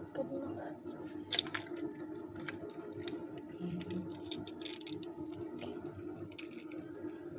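Light clicks and taps of kitchen things being handled at a mixing bowl, the sharpest about a second and a half in and a scatter more in the middle, over a steady low hum.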